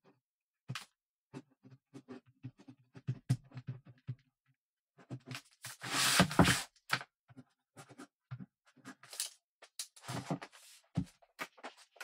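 Ballpoint pen writing on paper: a run of short scratching strokes with brief pauses between them, and a longer, louder stroke about six seconds in.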